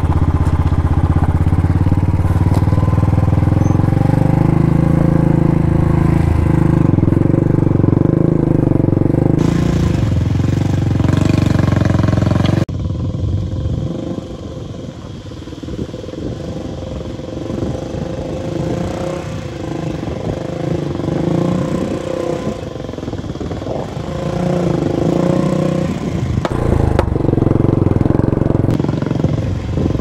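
Motorcycle engine running under load as the bike is ridden off-road, loud and steady. About twelve seconds in it drops abruptly to a quieter, rougher engine sound, which grows louder again near the end.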